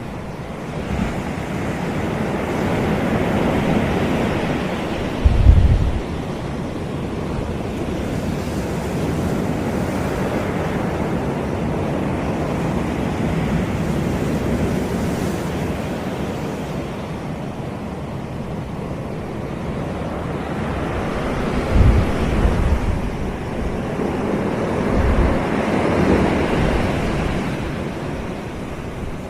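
Sea waves breaking and washing up on a beach, the surf rising and easing over several seconds, with a few short low thumps of wind on the microphone.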